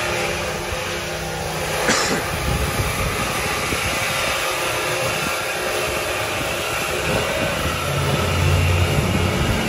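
Motor vehicle engine running under a steady rush of noise, its low note growing stronger near the end, with one sharp click about two seconds in.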